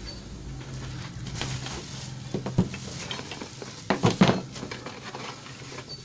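Cardboard box and plastic packaging rustling and crinkling as a new power-tool set is unpacked by hand, with scattered short knocks of handling and the loudest cluster about four seconds in.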